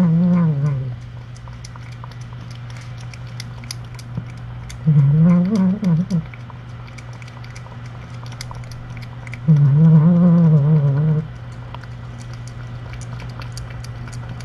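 Three low, drawn-out cat calls with a wavering pitch, each a second or so long: one at the start, one about five seconds in, one about ten seconds in. A steady electrical hum runs underneath.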